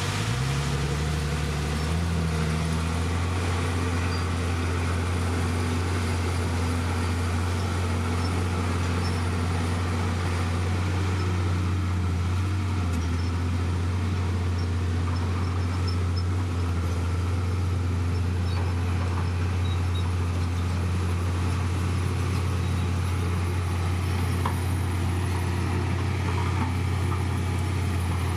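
Heavy diesel engine of a Komatsu D51PX bulldozer running steadily under load, its pitch rising in the first two seconds and then holding.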